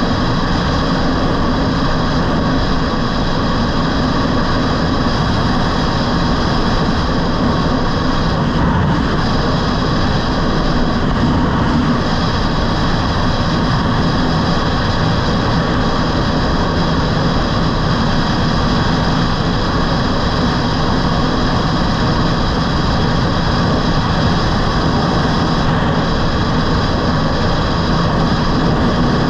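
Steady wind rush on an action camera's microphone while riding an electric scooter at speed, with a few faint steady tones in it.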